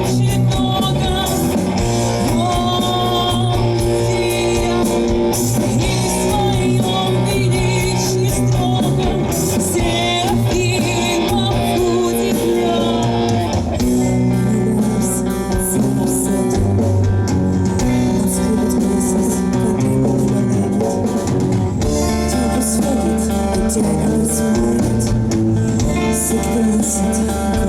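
Rock band playing live, with guitar prominent.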